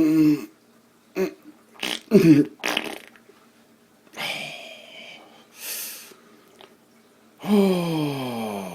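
A man's voice making nonverbal noises rather than words: short grunts and breathy puffs, a brief hiss, then near the end a long vocal sound that falls steadily in pitch.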